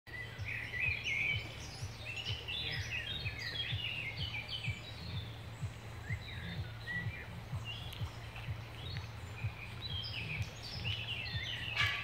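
Songbirds singing in woodland: many short chirps, whistles and trills from several birds, over a steady low hum with soft low knocks about twice a second. A sharp click just before the end.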